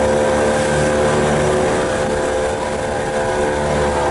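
Motorboat engine running at a steady speed, heard from aboard, with a constant even drone and water noise.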